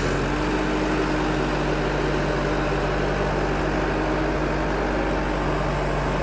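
Engine running steadily, a low even hum with no revving or change in speed.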